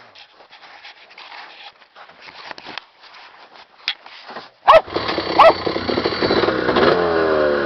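1971 Northway MKII snowmobile's 400cc two-stroke engine catching suddenly about two thirds of the way in and running, its pitch rising and falling as the throttle is worked. A dog barks a few times just before and as it starts.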